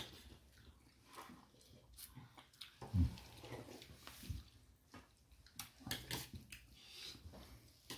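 Quiet eating sounds: fingers squishing rice and chicken soup together on a plate, chewing, and scattered small clicks, with one dull thump about three seconds in.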